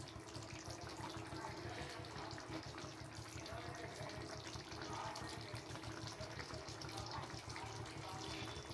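Chicken curry gravy simmering in a pan: a faint, steady bubbling made up of many small pops.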